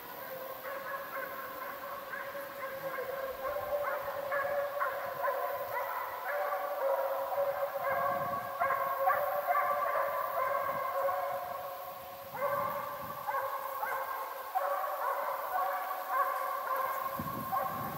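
Russian hounds baying as they run a hare, several voices overlapping into a continuous chorus that dips briefly about twelve seconds in and then picks up again.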